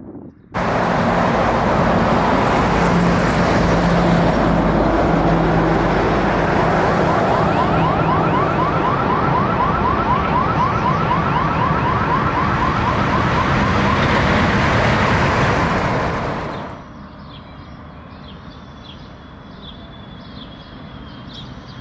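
A siren making rapid, repeated upward sweeps (a yelp pattern) over loud, dense rushing noise of wind or traffic, which cuts in suddenly and stops abruptly well before the end. This is followed by a much quieter stretch with faint high chirps.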